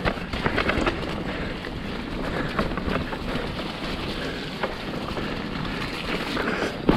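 Mountain bike riding down a dirt trail: steady tyre noise and wind on the microphone, with scattered rattles and clicks from the bike and a sharp knock near the end.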